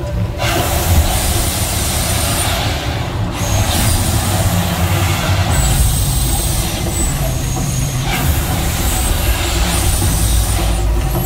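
Gas flame jets of the Mirage volcano firing in long hissing whooshes, four in a row of two to three seconds each with short breaks between, over a deep steady rumble.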